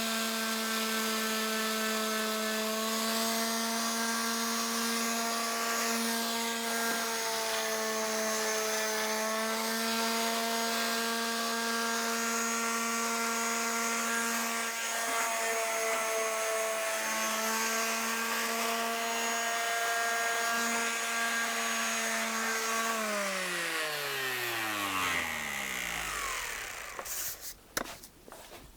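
Electric sander running steadily over wood that has its first coat of varnish, its motor whine mixed with the hiss of the abrasive. About 23 seconds in it is switched off and the whine falls in pitch as the motor spins down, followed by a few light knocks near the end.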